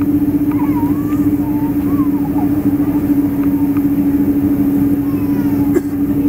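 Boeing 777-200 cabin while taxiing: the jet engines hum steadily at low power, a single strong low drone over a steady rumble.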